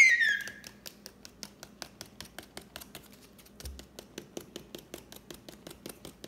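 A child's high squeal trailing off at the start, then steady, evenly spaced clicking, about five a second, from a clear plastic spin-art spinner dish.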